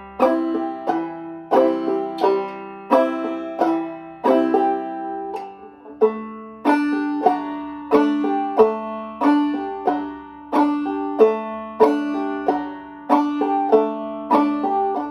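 Five-string Gold Tone banjo played clawhammer style in the bum-ditty pattern: a struck melody or bass note, a brush across the strings and a thumb pop on the fifth string, repeated in a steady rhythm. The chords change a few times along the way.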